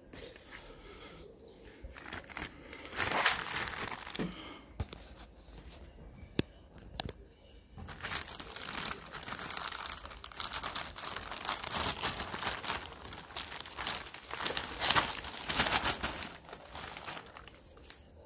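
Plastic courier bag being crinkled and opened by hand, and a bubble-wrapped book drawn out of it. A short crinkle about three seconds in, then a dense, continuous crinkling of plastic and bubble wrap from about eight seconds until near the end.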